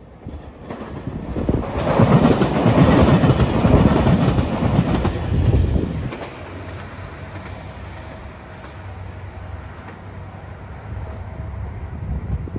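A train passing close by, its wheels clattering over the rails. The clatter is loudest from about two to six seconds in, then drops to a lower, steady rumble.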